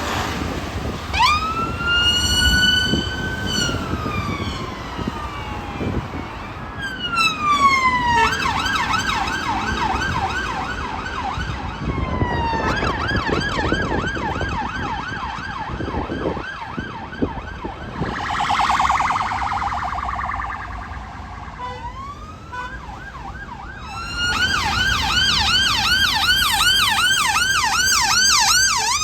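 Emergency vehicle's electronic siren, switching from a slow rising-and-falling wail to a fast yelp. There is a brief harsh blast about two-thirds of the way through, then the yelp again, loudest near the end, over road noise.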